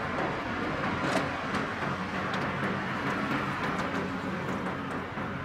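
Steady hum of a car idling, heard from inside its cabin, with a few faint ticks.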